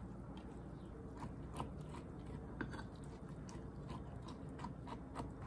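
A clear plastic spoon stirs rice koji, salt and water in a glass measuring cup, making soft, irregular wet crunching with light clicks of the spoon.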